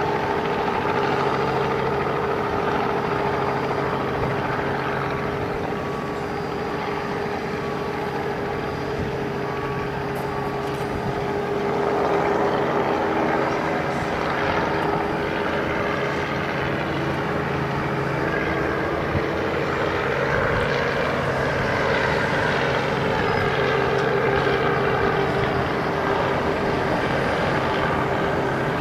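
Ruschmeyer R90-230RG's six-cylinder piston engine and propeller running at low power as the light aircraft rolls out and taxis after landing, a steady drone that grows louder about twelve seconds in.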